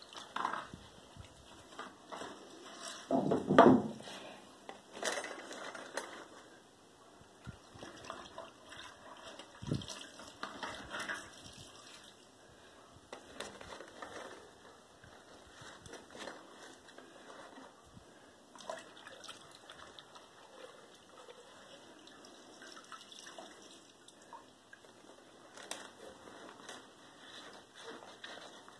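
Soaked paper pulp being handled by hand: scooped from a bucket of water, then packed into a paper-log press. Irregular wet squelches, sloshes and drips, with the crinkle of wet newspaper and a louder burst about three seconds in.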